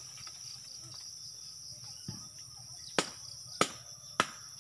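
Steady high-pitched insect drone from the surrounding forest, with three sharp knocks about half a second apart in the second half, and a dull thud about two seconds in.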